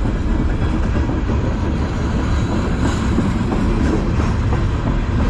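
Freight cars of a CN manifest train rolling past close by: steel wheels rumbling and clacking steadily on the rails, with a couple of sharper clanks near the middle.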